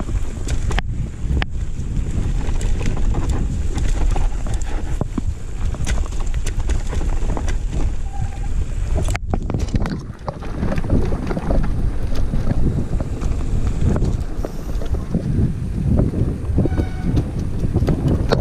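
Mountain bike rattling and clattering over a rough dirt trail at speed, with wind rushing over the microphone and frequent sharp knocks and clicks from the bike. The sound drops out briefly about nine seconds in, then resumes.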